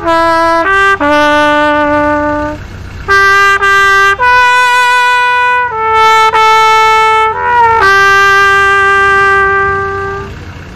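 A solo trumpet-type brass horn playing a slow tune of long held notes. The last note fades out near the end.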